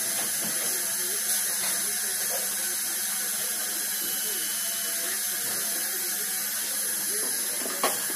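High-speed dental handpiece (dental drill) whining steadily at the upper front teeth, with the suction tube running. A short click comes near the end.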